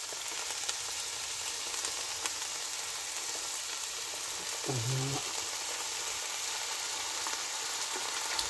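Sliced onions frying in oil in a pan, sizzling steadily.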